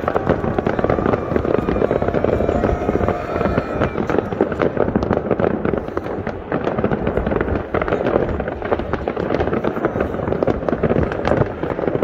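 Distant fireworks and firecrackers going off all over a city at once: a dense, unbroken crackle of many overlapping bangs and pops.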